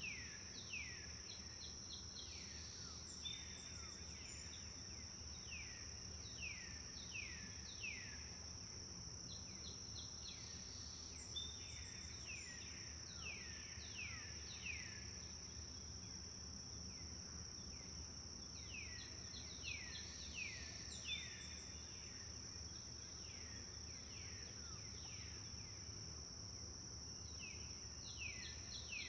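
Songbird singing phrases of quick downward-sliding whistled notes, with short clipped notes between, pausing twice for a few seconds, over a steady high insect drone.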